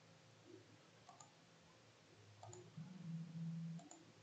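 A few faint computer mouse clicks over a low, steady hum that swells for about a second near the end.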